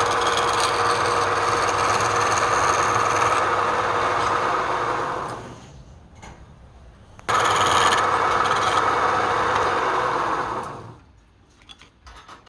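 Wood spinning on a lathe while a tool cuts it, giving a steady rough rasping hiss. The hiss stops for about two seconds in the middle, then starts again suddenly and fades out near the end, with a few small ticks after.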